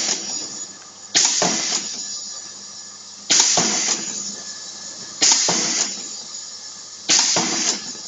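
Pneumatic eyelet press with a large air cylinder, cycling as it sets metal eyelets into PVC tarpaulin. Each stroke is a sudden burst of hissing air that fades over about half a second, four strokes about two seconds apart.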